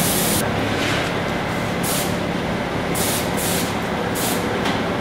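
A steady mechanical drone with a low hum, broken by four short bursts of hissing air, typical of compressed-air spraying.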